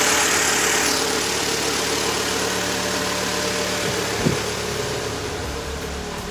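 2006 Mini Cooper's four-cylinder engine idling steadily, running again now that its EWS immobilizer has been realigned and spark restored. A short knock about four seconds in.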